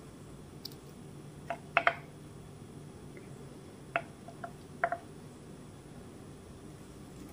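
Hands mixing cooked rice in a steel bowl and picking banana slices off a glass plate: about six light clicks and taps against the dishes in small clusters, over a faint steady hum.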